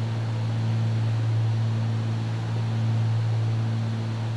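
Steady cabin drone of the Cessna 310's twin piston engines and propellers in flight, a low hum over even noise that swells and fades slightly.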